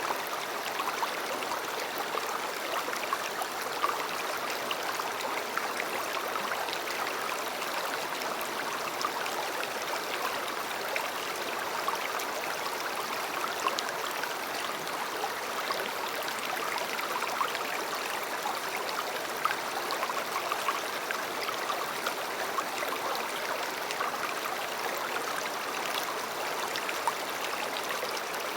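River water flowing steadily, a continuous rushing with many small splashes and gurgles through it.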